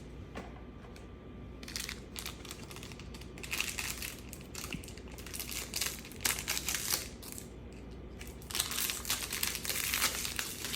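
Crinkling and rustling of a plastic trading-card pack wrapper and baseball cards being handled, in irregular bursts that are loudest in the middle and near the end.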